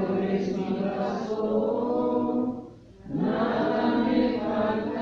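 Congregation singing the responsorial psalm refrain together in held, chant-like notes: two sung phrases with a short break about three seconds in.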